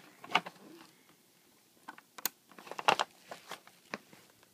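Clicks and knocks of an AlphaSmart Pro portable word processor being handled and its keys pressed as it is switched on. There is one loud knock about a third of a second in, then a burst of clicks around the three-second mark.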